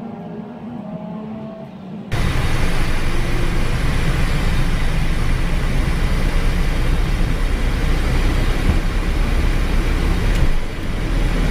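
Background music for about two seconds, then an abrupt cut to loud, steady cockpit noise of a Cessna Citation XLS on its takeoff roll: its twin turbofan engines at takeoff power, with the rush and rumble of the runway. The noise shifts briefly near the end as the jet lifts off.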